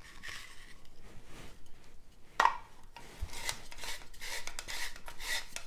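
Handheld spiral cutter twisted on an onion, its blade shaving the onion into spirals with a rhythmic rasping crunch, about three strokes a second, from about three seconds in. A sharp click comes just before.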